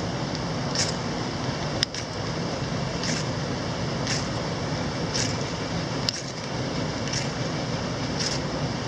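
Steady rushing of a mountain stream, with a short, high-pitched scraping stroke repeated about once a second.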